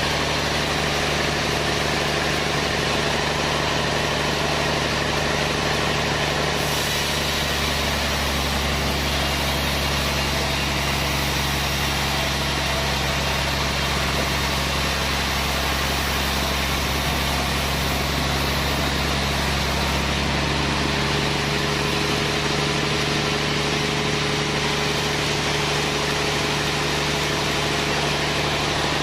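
Sawmill machinery's engine running steadily, its sound growing deeper and fuller from about seven seconds in until about twenty seconds in.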